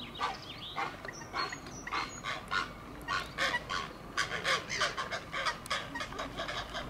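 Grey herons at the nest calling: a rapid run of short, harsh calls, about three or four a second, growing louder about three seconds in as a second adult lands at the nest.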